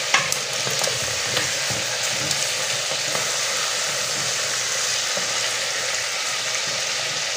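Pork belly cubes sizzling in hot oil in a pressure cooker pot, stirred with a wooden spoon: a steady frying hiss with a few sharp clicks, the loudest just after the start.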